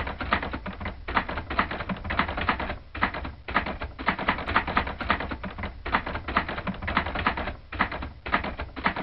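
Typewriter keys clacking in quick runs of keystrokes, with short breaks about three seconds in and again near eight seconds, over a low steady hum.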